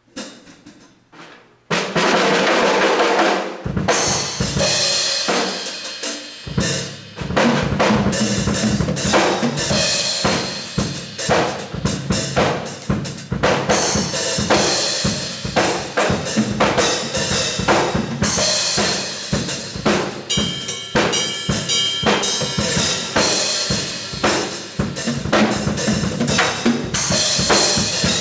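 Acoustic drum kit played hard, picked up by a camcorder's built-in microphone with no close miking. A few light strokes open it, then a loud cymbal crash rings out, followed by a fast, busy pattern of bass drum, snare and cymbals.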